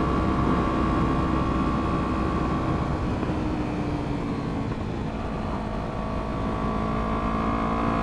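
Kawasaki Ninja 300's parallel-twin engine and exhaust running under way on the road, with wind noise on the helmet microphone. The engine note dips about three seconds in, then climbs slowly.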